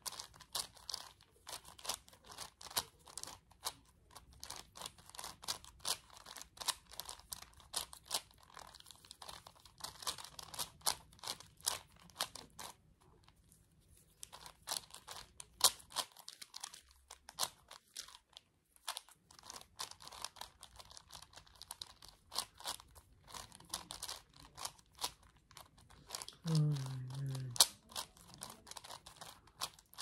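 A plastic 5x5x5 Rubik's cube being turned by hand: rapid, irregular clicking and rattling of its layers, pausing for a few seconds near the middle. A brief low hum near the end.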